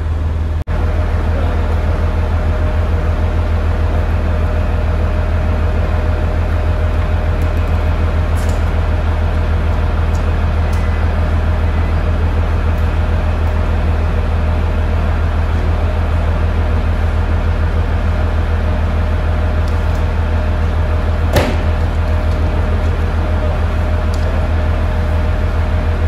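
Steady low hum of a standing diesel hybrid railcar idling at the platform. A single sharp knock comes about three-quarters of the way through.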